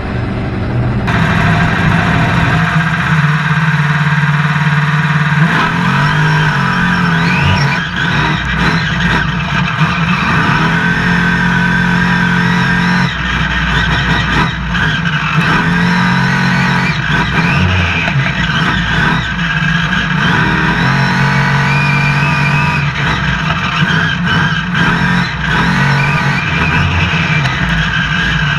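Monster truck's supercharged V8 engine running hard through a run, revving up and dropping back again and again as the throttle is worked.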